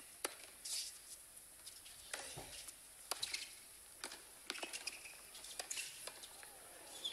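Tennis rally on a hard court: rackets striking the ball and the ball bouncing, a string of sharp pops coming every half second to a second.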